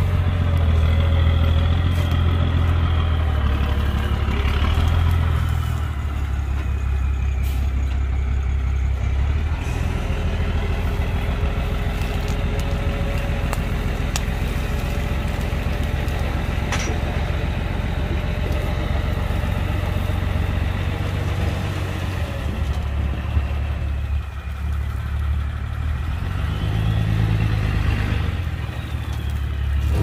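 Heavy diesel earthmoving machinery running under load, with a deep engine drone that works hardest in the first ten seconds, eases, and revs up again near the end. A fainter whine rises and falls in pitch over it.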